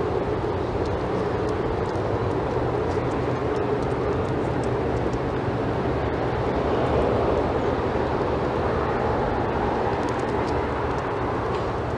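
A steady, even drone of distant engine noise with no distinct events, swelling slightly about seven seconds in.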